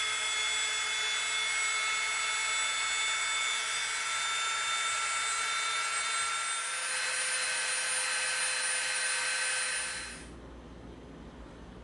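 Handheld rotary tool whining at high speed as its small bit sands and rounds the cut edges of thin EVA foam strips. Its pitch shifts slightly about seven seconds in, and it stops about ten seconds in.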